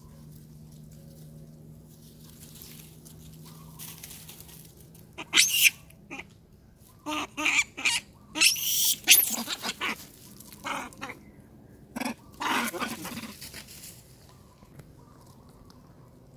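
Long-tailed macaque screaming in a run of short, shrill, high-pitched bursts starting about five seconds in, the last call falling in pitch.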